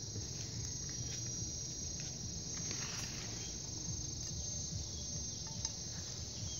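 Steady, high-pitched chirring of insects, with a few faint clicks.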